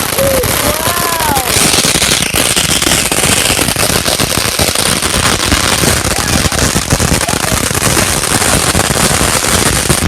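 Fireworks going off in a rapid, unbroken run of crackles, pops and bangs.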